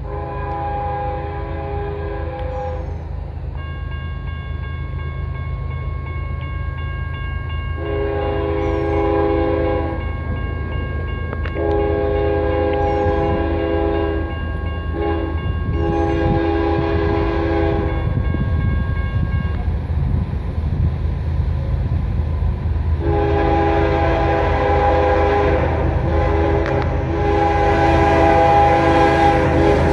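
Diesel freight locomotive's air horn sounding a series of long blasts with one short blast midway, the last one held for several seconds, over a low steady engine rumble that grows louder as the train approaches.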